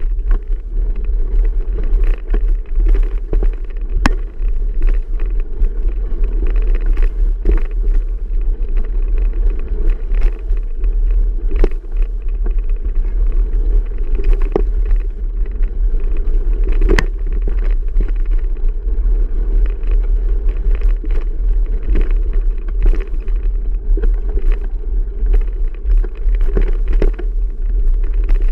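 Riding noise of a bicycle: wind buffeting the microphone in a steady low rumble, with frequent clicks and knocks from the bike rattling over the ground.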